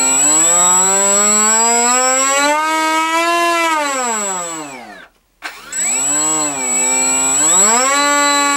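Electric motor of an FX61 model plane run up twice on the throttle: a whine that rises, holds, then falls away and stops about five seconds in, then spins up again, dips briefly and climbs back to a steady whine. A thin, steady high-pitched whine sounds alongside whenever the motor is running.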